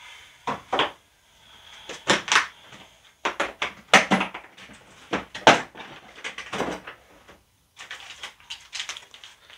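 Plastic tool case being opened and its contents handled: a string of sharp clicks and knocks from the case's catches and lid, then softer handling of the plastic accessory bags inside near the end.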